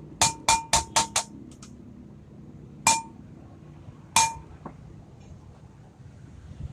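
Hammer blows on metal, each with a short ringing note: five quick strikes in the first second or so, then two single blows about three and four seconds in.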